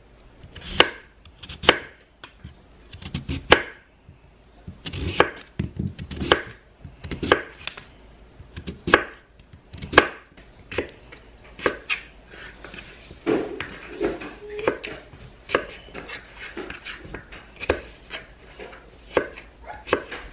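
Chef's knife slicing and dicing raw sweet potato on a cutting board: the blade knocks on the board about once a second at first, then comes down in quicker, lighter strokes in the second half.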